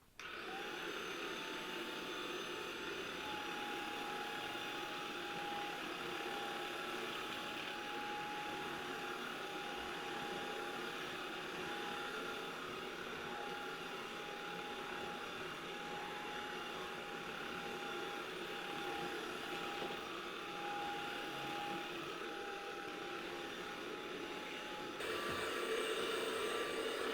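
Vacuum cleaner switched on, its motor whine rising and settling into a steady running pitch over a steady rush of air. About 25 s in, the sound gets louder and its pitch changes.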